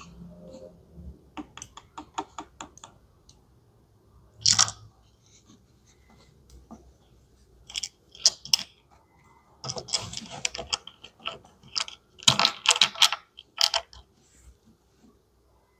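Gloved hands handling plastic dolls and small plastic toy accessories: a quick run of light clicks, then scattered crackles and rustles of plastic and fabric.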